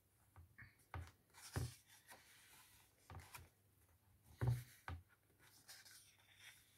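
Pages of a hardcover picture book being turned and smoothed flat by hand: quiet paper rustles and rubbing with a few soft thumps, the loudest about four and a half seconds in.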